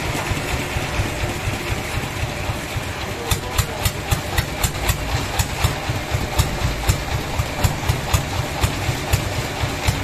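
Sawmill engine running steadily. From about three seconds in, a regular sharp ticking comes in at about three to four ticks a second.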